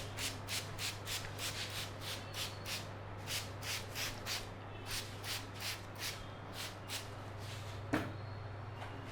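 Hands rubbing a scalp and hair in quick, rhythmic massage strokes, about three a second, over a steady low hum. A single sharp click about eight seconds in.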